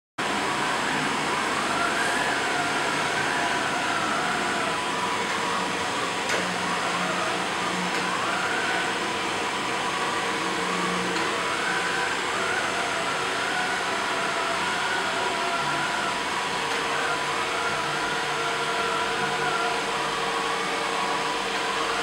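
Ameribot 720 robot vacuum cleaner running in edge-cleaning mode: its suction motor and brushes give a steady whirring hiss, with a high whine that wavers up and down in pitch. It starts abruptly at the very beginning.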